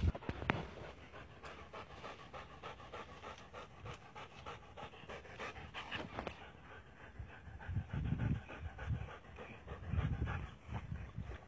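A dog panting rapidly, with a few low thumps about 8 and 10 seconds in.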